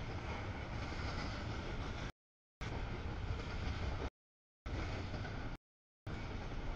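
Double-stack container freight train rolling past a grade crossing: a steady low rumble and wheel noise. The sound cuts out completely for about half a second three times, roughly every one and a half seconds.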